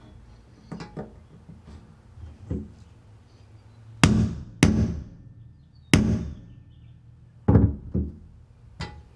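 Hammer striking a steel center punch against a steel bed-slide rail to mark hole positions for drilling, the first step toward pilot holes for rib nuts. A few light taps come first, then about five sharp, ringing blows from about four seconds in.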